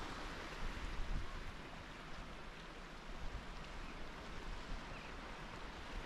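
Sea washing on a rocky shore: a steady hiss of surf, with wind rumbling on the microphone.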